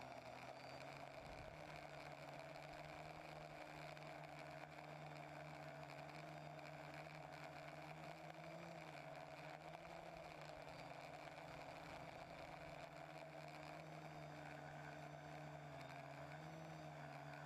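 TBS Discovery quadcopter's electric motors and propellers humming steadily and faintly, the pitch wavering slightly as the throttle changes.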